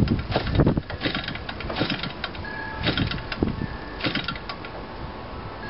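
Model-airplane gasoline engine being hand-flipped by its propeller without catching: a run of irregular knocks and clacks as the prop is swung through compression, the loudest cluster in the first second, then single strikes about once a second.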